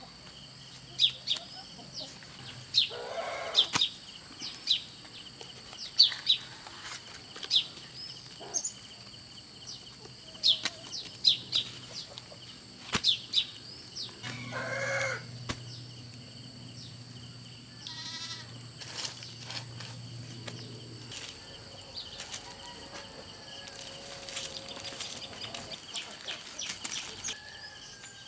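Rural outdoor ambience: a bird calling in short, sharp chirps again and again through the first half, over a steady high insect drone, with a farm animal calling briefly a few times.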